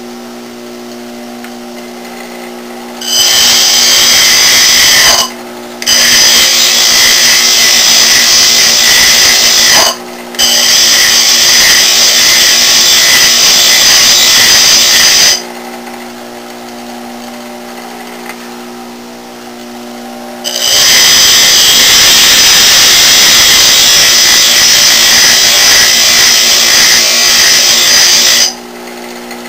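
Craftsman bench grinder running with a steady motor hum, and a high-speed steel lathe tool bit being ground on its coarse wheel. The loud grinding comes in long stretches, from about 3 s to 15 s with two brief breaks near 5 and 10 s, then again from about 21 s to near the end.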